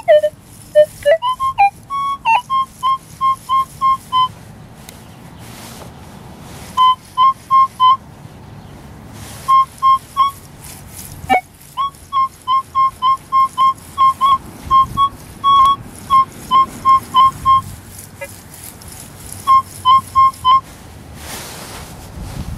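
Minelab E-TRAC metal detector sounding a clean, repeatable high tone over a buried target: runs of short beeps, about three a second, each time the coil sweeps across it, with short pauses between the runs. A strong, consistent signal that the detectorist calls a real nice, good sounding signal.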